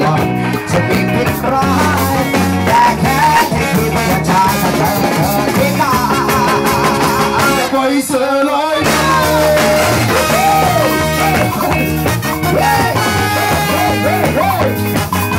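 Live band playing through a PA: drums, electric guitar, bass and horns including trombone and trumpet, with singers on microphones. The bass and drums drop out for about a second around the middle, then the full band comes back in.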